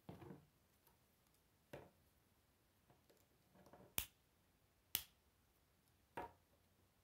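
Plastic K'Nex rods and connectors being handled and snapped together: about five sharp clicks, the two loudest about four and five seconds in, with soft rustling of the plastic parts between.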